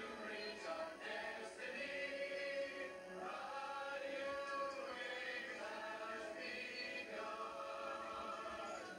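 A group of voices singing together in chorus over music, heard through a television's speaker.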